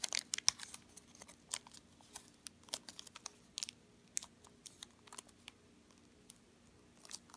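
Origami paper being creased and pressed between the fingers: soft crinkles and small clicks of folded paper, frequent in the first few seconds and sparse after.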